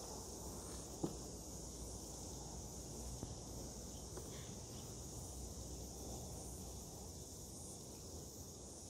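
Steady, faint chorus of insects chirring, an even high hiss. A single sharp click about a second in, with a fainter one about three seconds in.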